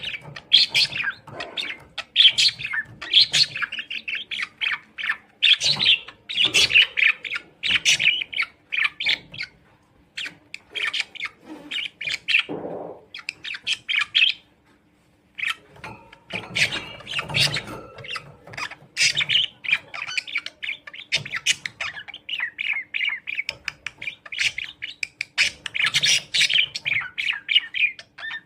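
Birds chirping and squawking in rapid, short calls, with a brief pause about halfway through; a faint steady hum runs underneath.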